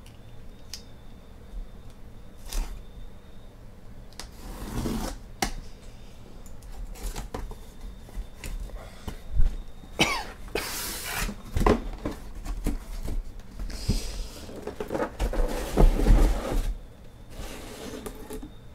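Cardboard shipping case of shrink-wrapped trading-card hobby boxes being handled and unpacked: scraping and rustling of cardboard and plastic wrap, with irregular knocks as the boxes are slid out and set down in stacks.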